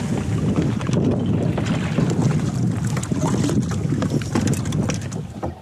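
Wind buffeting the microphone over the low steady rumble of a charter boat lying alongside. The sound drops away sharply at the very end.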